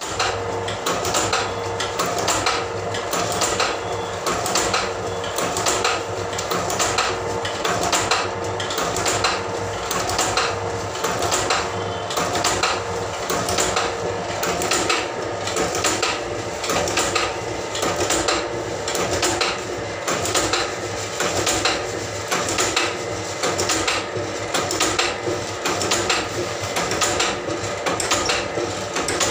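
Camphor tableting machine running, its press striking in a steady, even rhythm of metallic clanks over a steady hum.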